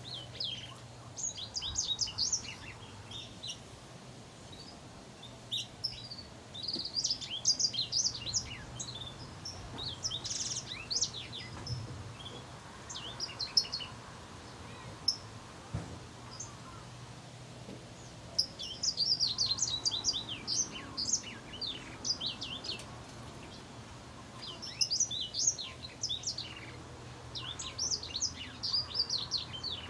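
A small yellow cage finch singing in bursts of quick, high twittering notes, about six phrases a few seconds apart, over a steady low hum.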